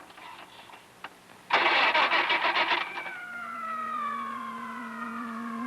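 A car's starter cranking the engine in a rapid pulsing run for about a second, starting about a second and a half in, without it catching: a reluctant cold start. Then eerie music begins, a slowly falling tone over a held low note.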